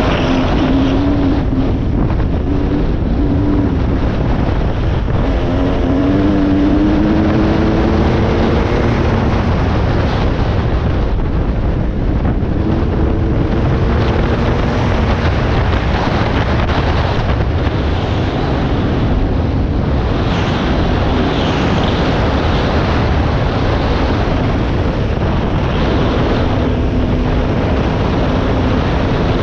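Dirt bike engine running as the bike rides along a trail, its pitch climbing several times as it accelerates, under heavy wind buffeting on a helmet-mounted microphone.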